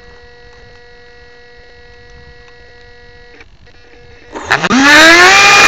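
Faint steady electrical hum, then a little over four seconds in a small motor starts very loud, its whine rising steeply in pitch as the vehicle it drives accelerates off over asphalt, with a rushing noise over it.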